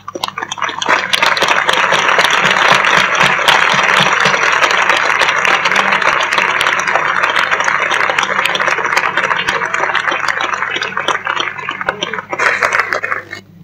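A crowd applauding, starting abruptly and dying away near the end.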